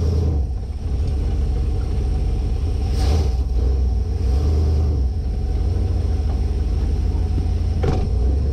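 1972 Winnebago Brave motorhome's engine running under way, heard from inside the cab as a steady low rumble. There is a brief knock or rattle about three seconds in and another near the end.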